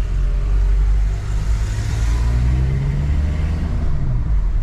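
Engine and road noise inside the cabin of a moving vehicle in town traffic, a steady low rumble with the engine note rising as it picks up speed about a second in, then easing off.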